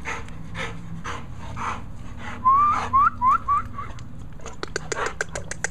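Pit bull puppy panting in steady, even breaths. About halfway through comes a short run of high, rising squeaks, and near the end a quick series of sharp clicks.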